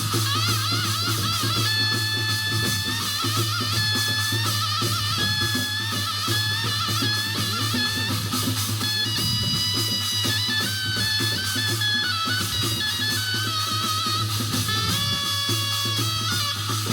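Traditional Korean shamanic ritual (gut) music: a wavering melodic line with heavy vibrato over a steady low drone and regular drumming.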